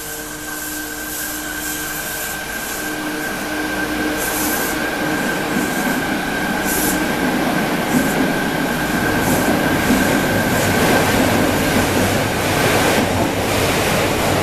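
Fukuoka City Subway 3000 series linear-motor train pulling out of an underground station and accelerating past, its running noise growing steadily louder. A steady high whine holds until near the end, with a few short high-pitched squeals along the way.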